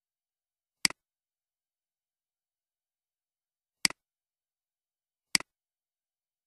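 Three computer mouse clicks, each a quick double tick of button press and release: one about a second in, one near four seconds, and one a second and a half after that.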